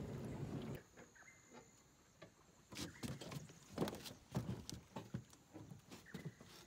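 Small outboard motor on an aluminium tinny running steadily, cutting off abruptly under a second in. After that it is quiet, with a series of scattered knocks and clunks.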